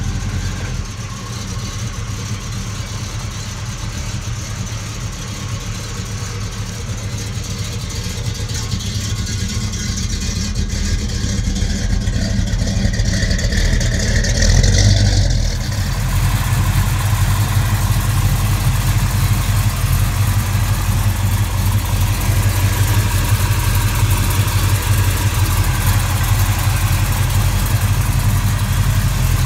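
Chevelle SS 454's V8 engine idling steadily with a deep, even rumble. It swells for a moment about halfway through, then changes abruptly to a slightly louder, steady idle.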